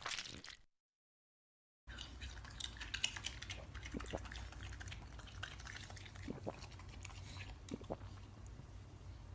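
Cartoon rat chewing and nibbling on a slice of pizza: irregular small clicks and smacks over a steady low hum, starting about two seconds in after a short burst of noise and a moment of silence.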